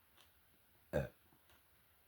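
A single short, loud burp about a second in.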